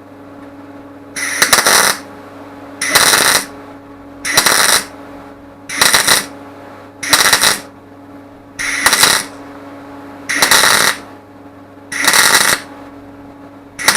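Welder laying a run of short welds on the tractor door's sheet metal: eight sharp bursts about every second and a half, with a steady hum between them.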